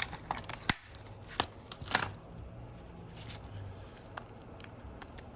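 Scattered light clicks and taps, about one a second, from small phone parts being picked up and set down on a work surface.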